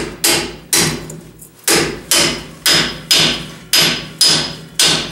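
Hammer striking a large socket to drive a new pinion seal into the rear differential housing, about two blows a second with a short pause after the second blow. Each blow gives a sharp metallic strike that rings briefly.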